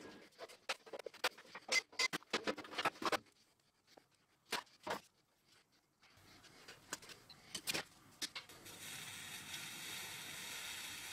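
Small clicks, taps and rattles of hands working on an arc welder's sheet-metal case and internals as it is taken apart for repair, busiest in the first few seconds. Near the end a steady hiss sets in.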